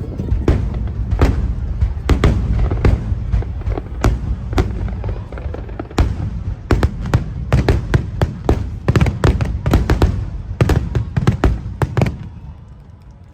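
Rapid barrage of fireworks shells bursting, several sharp bangs a second over a deep rumbling boom, ending abruptly about twelve seconds in.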